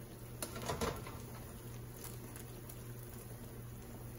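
Tongs lifting boiled noodles out of a wok of hot water into a plastic tray: a light patter of dripping water and a few soft clicks, the loudest about half a second to a second in. A steady low hum runs underneath.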